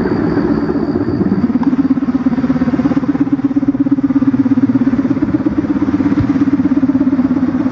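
Kite hummer (sendaren) on a pegon kite, droning in the wind: a steady, low buzzing hum that pulses rapidly and firms up about a second and a half in. Its bow is joined bamboo, ori bamboo in the middle and jajang bamboo at the ends.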